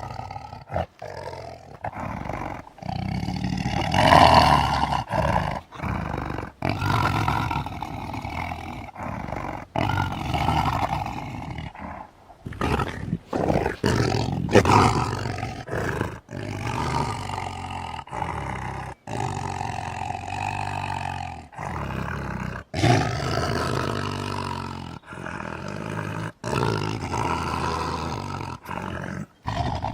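Tiger roaring and growling in a string of short calls, each ending in an abrupt cut, as if spliced together one after another.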